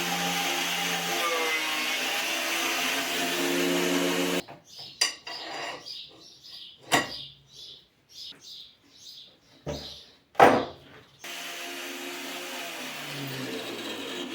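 A small electric motor driving a homemade belt-driven collet spindle runs with a steady hum for about four seconds. It then gives way to a quieter stretch of sharp clicks and knocks, as of the wooden handle and jig being handled. The motor hum returns about eleven seconds in, and its pitch falls near the end as it slows.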